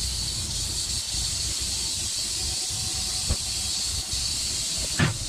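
Steady high-pitched hiss that starts and stops abruptly, with a light knock about three seconds in and a louder knock near the end.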